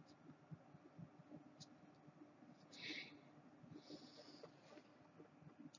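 Near silence: faint room tone with low crackle, and one soft brief hiss about three seconds in.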